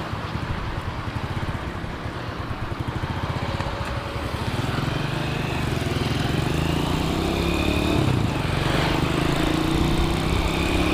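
Honda Astrea Grand's small four-stroke single-cylinder engine running under way, pitch and loudness rising through the second half as the bike accelerates.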